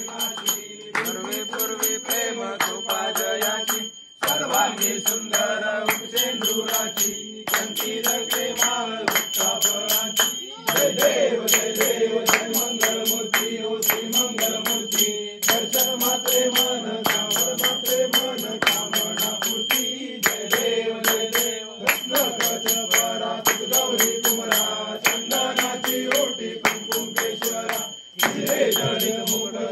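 A group of men singing a Ganesh aarti together to a steady rhythm of hand clapping, with a high bell-like ringing held throughout. The singing and clapping break off briefly a few times between verses.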